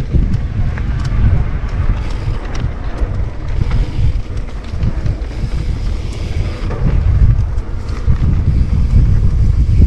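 Wind buffeting the microphone of a camera riding on an electric mountain bike at speed, a steady loud rumble, with scattered clicks and rattles from the bike over the trail.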